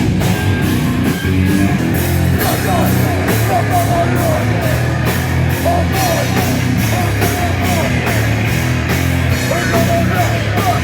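Loud heavy hardcore/metal music: a drum kit keeping a steady beat of about three cymbal hits a second under heavy guitars and bass.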